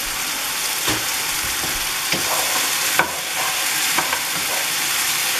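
Chicken and pepper strips sizzling in a hot frying pan, with a steady hiss, as a spatula stirs them, scraping and knocking against the pan a few times.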